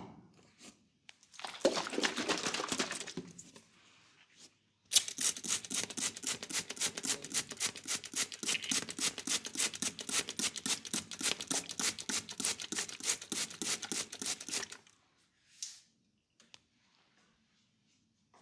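Hands working over skin in a massage: a short rustling spell, then a long run of fast, even strokes at about four or five a second that stops abruptly.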